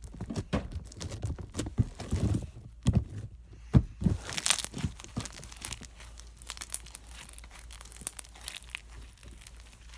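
Hands squishing and stretching slime: irregular sticky clicks, pops and crackles, loudest in the first four seconds, then softer crackling.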